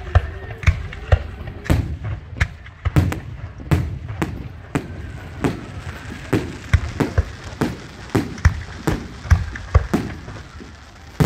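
Firecrackers and fireworks going off in an irregular string of sharp bangs, about two a second.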